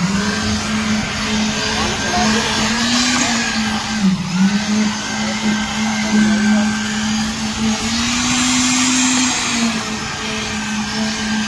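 Electric concrete needle vibrator running with its poker in wet concrete: a loud, steady hum over a high whine, its pitch sagging briefly about four seconds in. It is compacting the freshly poured slab concrete so that it settles and finishes smooth.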